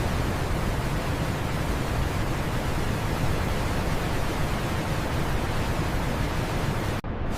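Steady rushing roar of a large waterfall, an even wash of noise with no pitch or rhythm, AI-generated. It cuts out for a split second near the end, then resumes.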